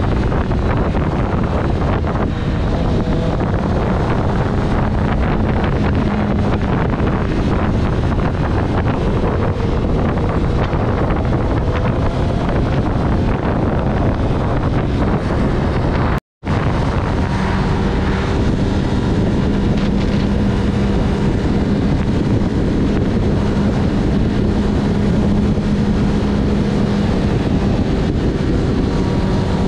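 Wind buffeting the camera microphone on a motorcycle at road speed, with the engine's steady drone underneath. A momentary gap of silence about halfway through.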